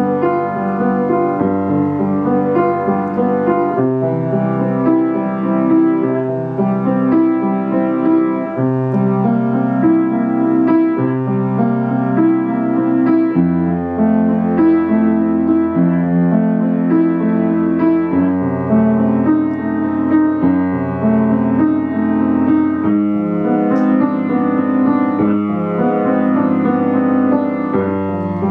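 An acoustic grand piano played solo in a classical piece, with sustained bass notes under chords and melody, played without a break.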